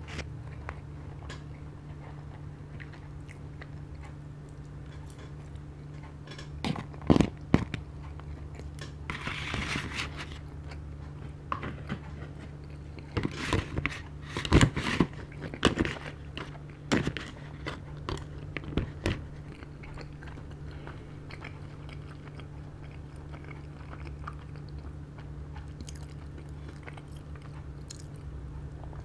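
Close-up eating sounds of someone chewing salmon sashimi and rice, with wet mouth noises and scattered sharp clicks and scrapes of chopsticks against a plastic takeaway bowl, busiest in the middle stretch. A steady low hum runs underneath.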